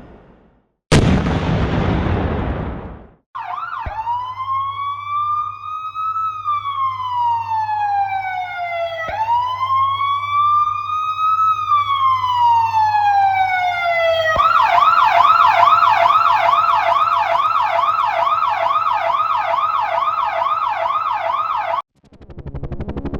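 A sudden loud blast that dies away over about two seconds, followed by an emergency-vehicle electronic siren with a low steady hum underneath. The siren gives two slow wails rising and falling in pitch, then switches to a fast yelp of about three to four sweeps a second before cutting off suddenly.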